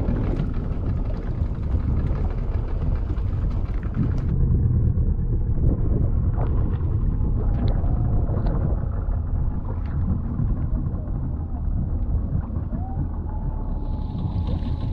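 Wind buffeting the microphone on a small open fishing boat: a steady low rumble, with a few light knocks in the middle.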